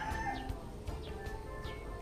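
Background music with steady held notes; the tail of a rooster's crow fades out in the first half second.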